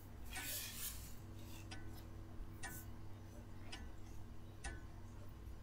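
A clock ticking quietly, about one tick a second, over a low steady hum.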